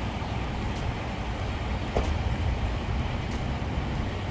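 Steady low rumble of vehicle traffic and running engines, with one short click about two seconds in.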